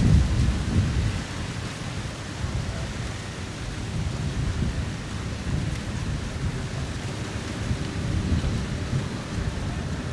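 Wind buffeting an outdoor microphone: an uneven low rumble, strongest about the first second, over a steady rushing hiss.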